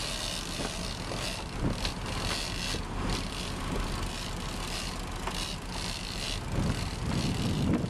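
Fishing boat's engine running steadily under way while trolling, under a constant rush of wind and water noise that swells louder near the end.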